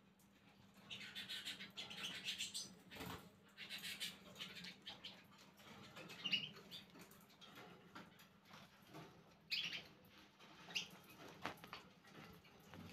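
Caged canaries, Glosters among them, chirping and twittering faintly in short bursts, with a few soft knocks and wing flutters as the birds move about the cage.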